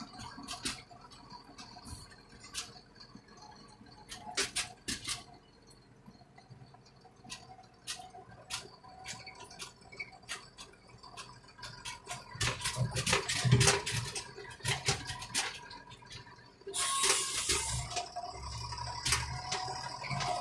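Deutz tractor driving slowly over a rough lane, heard from inside the cab: irregular clicks and rattles over a low engine drone that swells a little in places. A brief rushing hiss comes late on.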